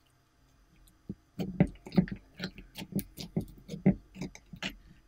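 Green slime being squished and pressed by hand into a glass dish, giving a quick irregular run of wet clicks and pops that starts about a second in.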